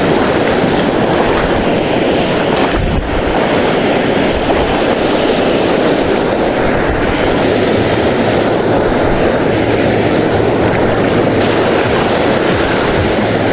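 Steady rush of sea wind buffeting the microphone, mixed with waves washing.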